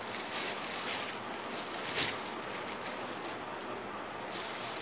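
Clear plastic bubble wrap rustling and crinkling as it is pulled off a replacement TV power-supply board by hand, with one sharper crackle about two seconds in.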